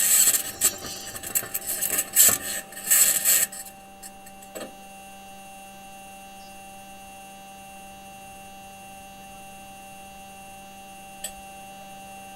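Perseverance rover's wheels grinding and scraping over sandy, granular Martian ground, heard through the rover's own microphone. The grinding stops about three and a half seconds in, leaving a steady electrical hum with a couple of faint clicks.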